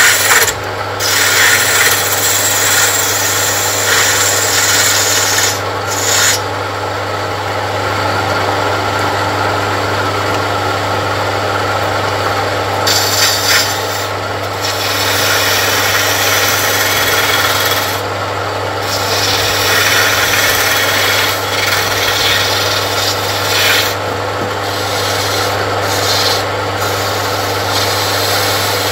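Turning gouge cutting a spinning wooden blank on a wood lathe: a steady rasping hiss of shavings peeling off, which thins out for several seconds in the middle and briefly a few more times as the cut lightens. The lathe's single-phase electric motor hums steadily underneath.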